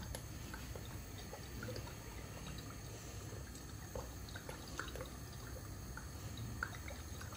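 Oil drizzled from a bottle's pour spout into a frying pan: a faint trickle with scattered small drips and ticks, over a low steady hum.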